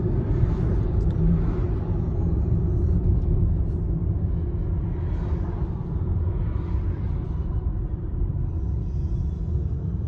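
Steady low road and tyre rumble inside the cabin of a Nissan Leaf electric car, with a faint steady whine in the second half.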